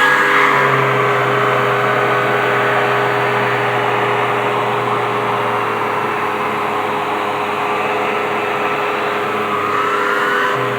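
Vacuum cleaner running steadily: a constant motor whine over rushing air, with a slight rise in pitch near the end.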